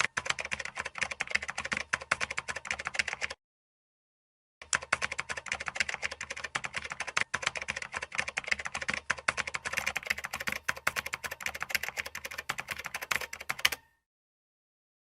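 Rapid, continuous clicking of keys being pressed, like fast typing. It comes in two runs separated by a sudden second of dead silence about three seconds in.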